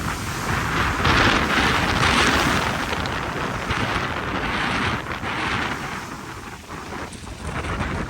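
Typhoon gale wind gusting hard over the microphone, surging in loud waves and easing somewhat in the second half.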